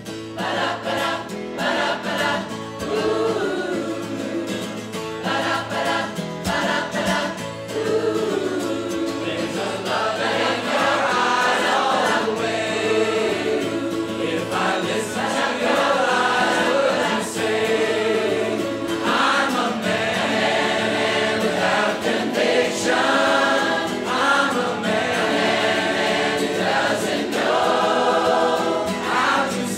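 A large amateur audience choir singing a song together in parts, with an acoustic guitar strummed along, swelling louder about ten seconds in.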